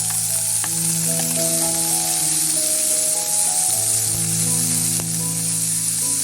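Cooking oil sizzling steadily in a frying pan, with background music of long held notes.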